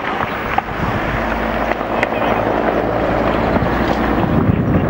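Firefighting helicopter running close by, its rotor and engine noise growing slightly louder, with wind rumbling on the microphone.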